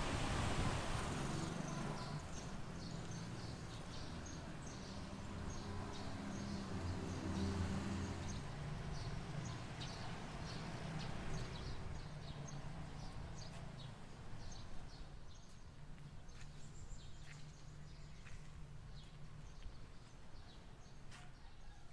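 Birds chirping in short, high, repeated calls over a low steady hum that fades away after about 14 seconds.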